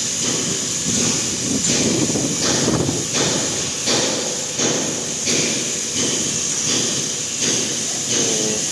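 Heavy tractor-trailer truck moving slowly, its engine running under a steady hiss, with irregular clunks about once a second.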